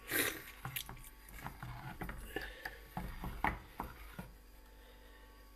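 Handling noise from a handheld phone: a run of light irregular taps and rustles lasting about four seconds.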